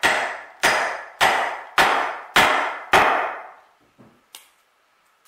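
Mallet blows on a wood chisel cutting a mortise, six strikes at a steady pace of about one every 0.6 s, each with a short ring. The strikes stop about three seconds in, leaving a couple of faint ticks.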